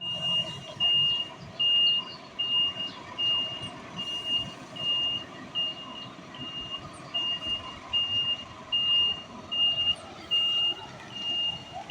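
Truck reversing alarm beeping steadily, about four beeps every three seconds, over the low running of the Scania truck's diesel engine.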